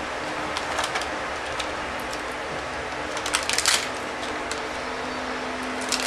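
Crinkling and crackling of shiny plastic memory-module packaging being handled, in short spells about a second in and a louder, denser spell between three and four seconds in, over a steady low hum.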